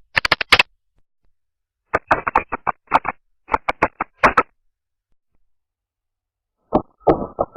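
Computer keyboard typing in short bursts of keystroke clicks with silent pauses between, the playback slowed more and more so each burst sounds lower and duller than the one before; the last burst starts near the end.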